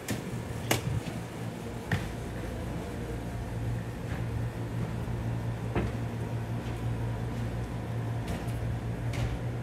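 Street ambience dominated by a steady low mechanical hum, with a few short sharp clicks scattered through.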